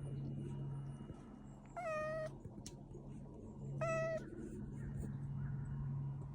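A cat meowing twice, two short, steady-pitched meows about two seconds apart, over a low hum that comes and goes.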